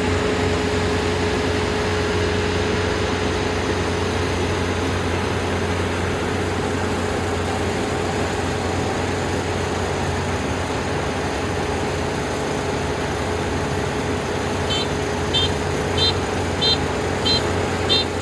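Dynamax 470 combine harvester's engine and threshing machinery running steadily with a low drone. About three seconds from the end a high electronic warning beep starts, repeating roughly one and a half times a second.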